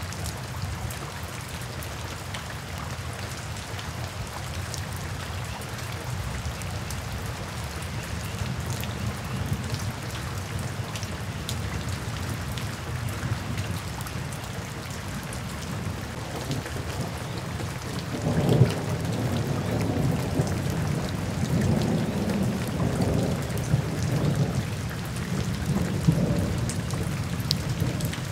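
Steady rain falling in a forest, a soft hiss with scattered drop ticks. About two-thirds of the way through, a low rumble of thunder sets in and rolls on under the rain.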